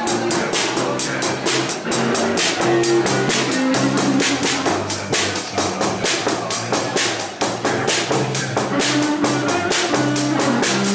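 Live band playing: a drum kit heard up close keeps a steady beat of cymbal strokes, about four a second, under held electric bass and guitar notes.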